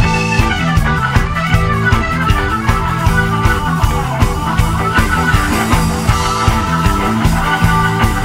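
Live instrumental rock jam: electric bass, electric guitar and drum kit playing together over a steady beat.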